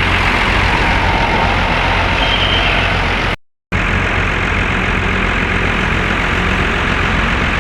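Heavy bus engine running with steady road and traffic noise and a deep low rumble, broken by a short gap of dead silence about three and a half seconds in.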